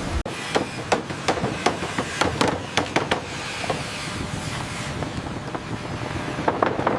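Sawmill machinery clattering: sharp knocks and clanks of wood and metal, about three a second at first, thinning out, then a few more near the end, over a steady mechanical noise.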